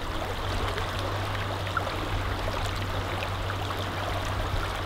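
Shallow river flowing over rocks: a steady wash of running water with small scattered gurgles.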